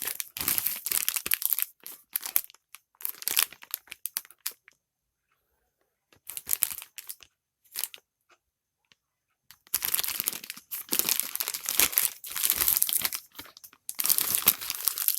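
Packaging crinkling and rustling as it is handled, in irregular bursts, with a quiet spell around five to six seconds in and denser handling over the last few seconds.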